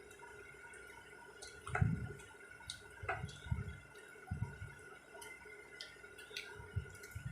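Wet eating sounds: scattered lip smacks and mouth clicks while chewing rice and curry, with a few soft low thumps.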